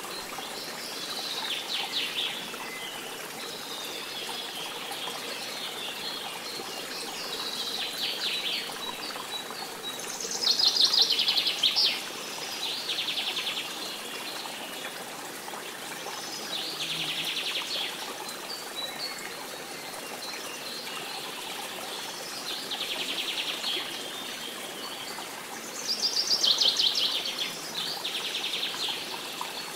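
A bird repeating a short, rapid buzzy trill every few seconds, often as a pair of phrases with the first louder, over a steady sound of running water.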